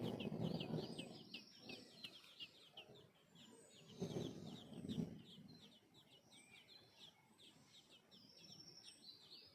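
Hatchlings' high, thin begging chirps repeated rapidly, several a second, with a louder low rustling sound at the start and again around four seconds in.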